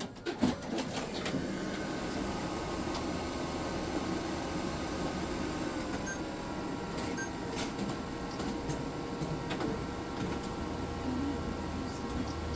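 Printer-scanner starting up and running through a scan-and-print job: a steady motor whirring with a few held whining tones and scattered clicks. The owner suspects it is making an odd sound.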